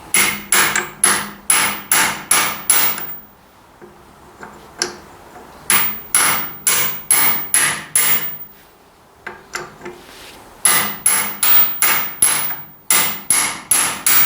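A hammer striking metal in four quick runs of blows, about three or four a second, each hit ringing brightly, as a worn fitting on a tractor part is knocked at.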